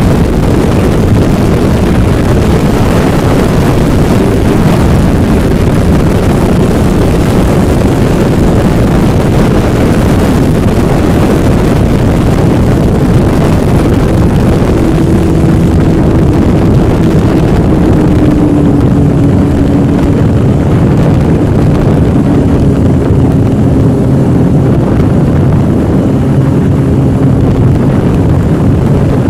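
Yamaha engine running steadily under way, with heavy rushing noise over it. Its tone eases slowly lower in the second half.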